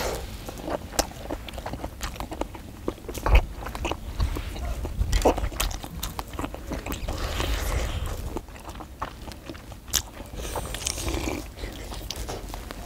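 Close-miked eating sounds: people chewing fish cake skewers and sipping hot broth, with many small wet smacks and clicks.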